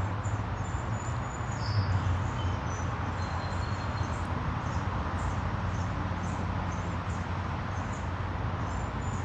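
Outdoor background: a steady low hum and wash of noise, with faint short bird chirps scattered over it.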